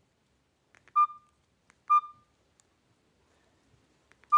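A mobile phone giving short, clear single beeps: two about a second apart, then another near the end.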